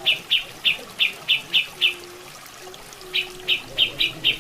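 Grey-cheeked bulbul (cucak jenggot) calling: a run of short, evenly repeated notes, about three a second, breaks off about halfway and starts again a second later. Running water trickles steadily underneath.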